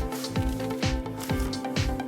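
Music with a steady beat, about two drum strokes a second under sustained tones.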